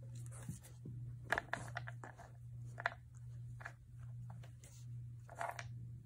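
Golden retriever puppy pawing and licking at an ice cube, making short scratchy scraping sounds several times, over a steady low hum.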